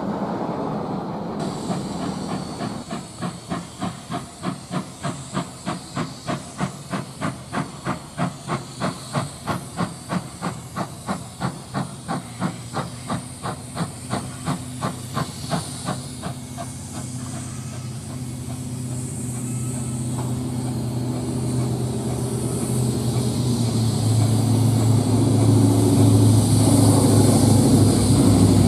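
1913 Hunslet-built steam locomotive 2705 working toward the listener, its exhaust beating about two to three times a second. About halfway through the beats stop, and a steady hiss of steam from the open cylinder drain cocks grows louder as the engine draws near, with a low rumble of the locomotive and its wheels building near the end.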